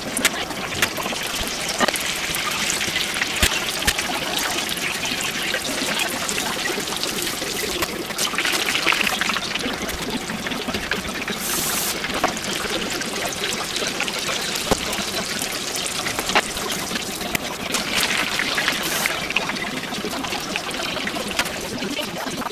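Battered pieces deep-frying in a pot of hot oil: a steady sizzle with many small crackles and pops.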